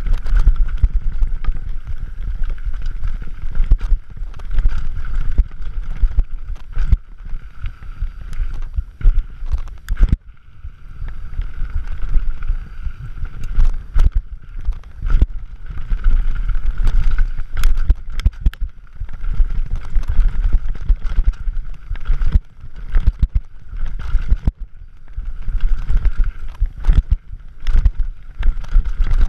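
Scott Gambler 720 downhill mountain bike ridden fast down a dirt trail: a constant low rumble of wind and tyres on dirt, broken by many sharp rattles and knocks from the bike over bumps and rocks. A buzzing hum comes and goes throughout.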